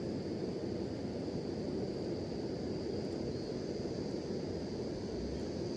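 Steady outdoor background noise, even and unbroken, with a faint steady high-pitched tone running under it.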